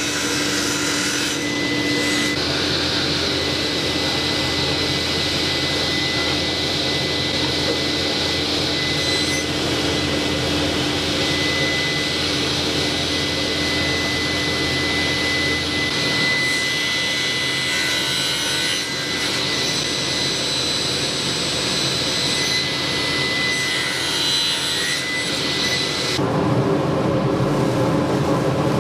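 Table saw running and cutting wood, with a dust collector pulling air and sawdust through an overhead hose, a steady machine noise with a constant whine. Near the end the sound shifts to a lower, fuller rush of air from the dust collection hose.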